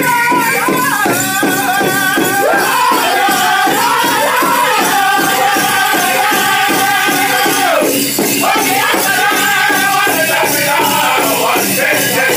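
Powwow drum group: several men singing together in unison while striking a large shared bass drum in a steady beat.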